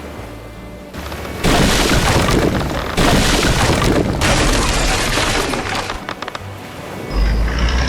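Cartoon sound effects: three long stretches of loud crashing and rumbling, one after another, then a heavy engine starts running with a low steady hum near the end.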